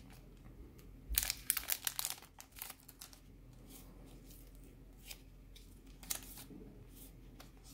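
Paper and packaging crinkling and rustling as they are handled, in a short cluster of strokes about a second in, then a few faint taps.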